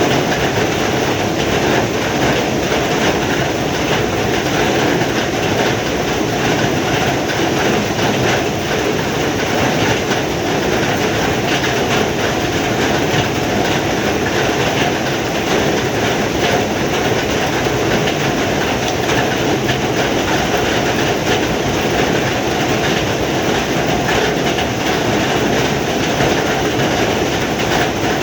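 Heavy rain falling steadily, a dense unbroken noise with no pauses.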